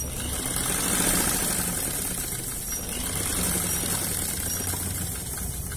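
Sewing machine running steadily, stitching through the dress fabric around the neckline.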